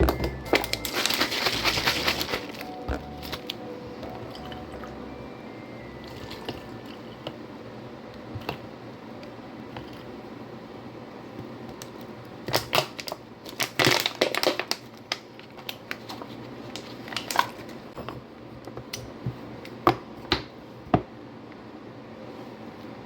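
Kitchen handling sounds while coffee is made: scattered clicks, knocks and clinks, with short noisy stretches about a second in and again around 13 to 15 seconds in. Light background music runs under the first few seconds.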